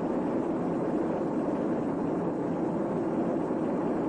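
Series Land Rover engine running with a steady, even rumble.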